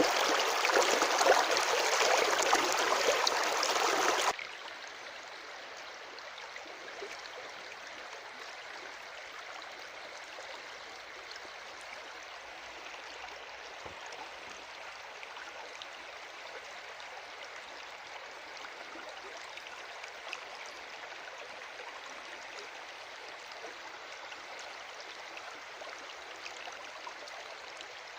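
Natural running water rushing steadily. It is loud and full until about four seconds in, then cuts suddenly to a quieter, softer steady flow.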